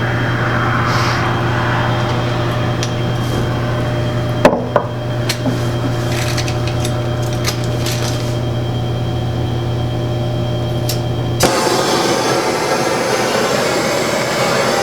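A propane torch being fitted and handled: a sharp knock about four seconds in, then light clicks. Near the end a steady hiss of propane takes over as a low hum cuts out.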